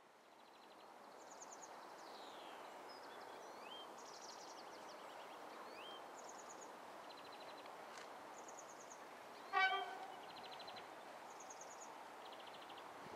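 Songbirds singing and chirping in quiet surroundings. About two-thirds of the way through, the approaching Class 33 diesel locomotive gives one short, loud toot on its horn.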